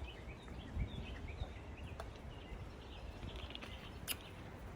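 Birds chirping in short repeated calls, thickest in the first couple of seconds, over a steady low outdoor background, with a couple of faint sharp clicks.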